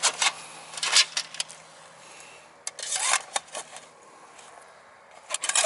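Aluminium table panels and stainless steel leg pieces clinking and scraping as they are slid into a nylon carry pouch, in three short bouts of handling.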